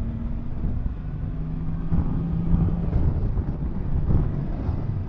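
Yamaha MT-10 SP's crossplane inline-four engine running under way, with wind rushing over the microphone. The engine gets louder from about two seconds in.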